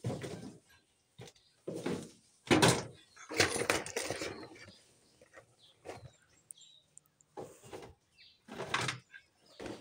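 Plastic toys clattering and rustling as they are pulled off a shelf and handled, in several separate bursts, the loudest about two and a half seconds in.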